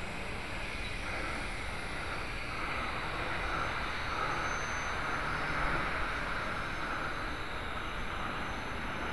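WLtoys V222 and UDI U818A toy quadcopters in flight, their small electric motors and propellers whirring in a steady buzzing hum that grows a little stronger about two and a half seconds in.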